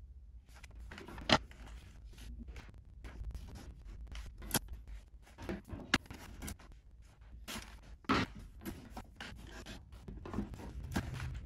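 Panels of a flat-pack radiator cover being picked up, turned and set down on a wooden parquet floor: scraping and rustling, with a few sharp knocks and clacks of board on board and board on floor, the loudest a little over a second in.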